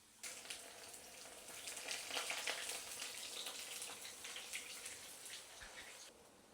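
Food frying in hot oil: a crackling sizzle with many small pops that starts suddenly and cuts off suddenly about six seconds later.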